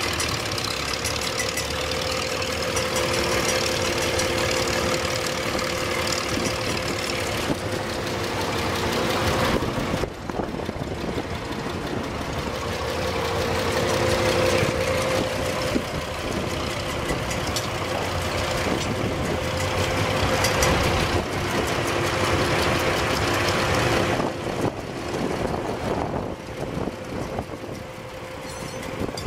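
1954 Cockshutt Model 40 tractor's six-cylinder engine idling steadily, the sound shifting abruptly about a third of the way in and again near the end.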